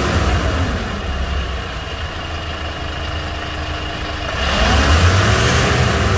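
Hyundai Porter II's turbo-diesel engine revved with the accelerator, heard from inside the cab. It falls back from a rev at the start, settles to idle, and revs up again about four and a half seconds in, the turbo building boost. A rushing hiss rises with each rev.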